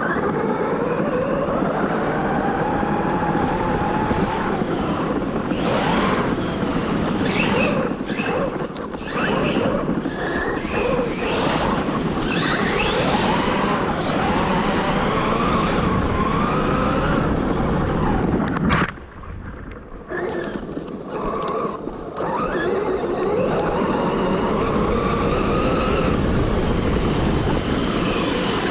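Brushless motor of an ARRMA Talion 6S RC car whining as it is driven hard, its pitch rising and falling with the throttle over a rough tyre-on-ground noise. About two-thirds of the way through there is a sharp knock, then a few quieter seconds before the whine picks up again.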